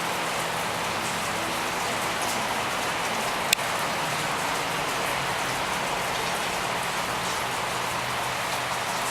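Steady, even rainfall pattering on surfaces, with one sharp tap about three and a half seconds in.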